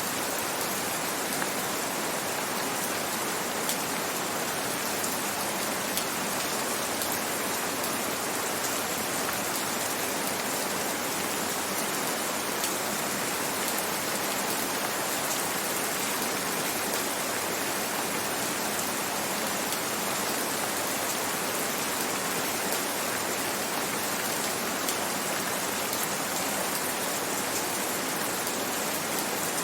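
Steady gentle rain, an even hiss with faint scattered drops pattering on a surface.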